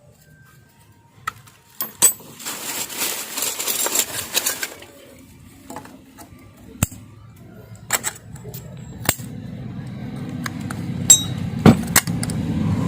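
Metal sewing-machine parts being handled and fitted by hand: several sharp clicks and knocks, with a stretch of scraping and rustling a couple of seconds in, and a low hum slowly growing near the end.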